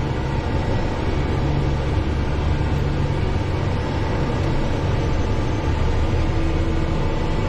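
Farm tractor engine running steadily, a continuous low drone with a faint steady whine above it.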